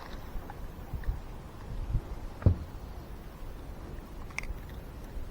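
A few light knocks over a low, steady rumble, the sharpest knock about two and a half seconds in.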